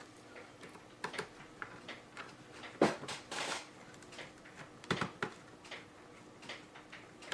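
Scattered small clicks and taps of hands fitting parts back into an open HP laptop's plastic and metal chassis, with a sharp click a little under three seconds in, a short scrape just after it, and two knocks about five seconds in.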